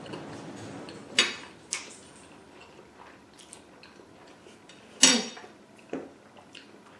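Close-up eating sounds: a fork clinking against a plate a few times, with quiet chewing of pasta in between.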